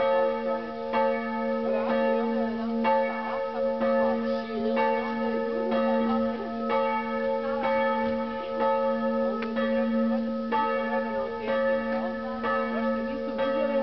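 Church bell ringing steadily, struck again and again less than a second apart, its tones hanging on between strokes.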